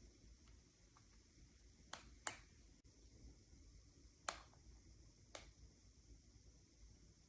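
Near-silent room tone with a faint steady hiss, broken by a handful of sharp, short clicks at irregular intervals: two close together about two seconds in, then single ones at about four and five seconds.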